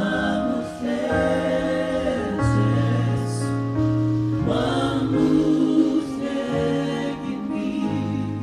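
Gospel vocal group singing together in harmony, holding long notes that change every second or so over a steady low bass line.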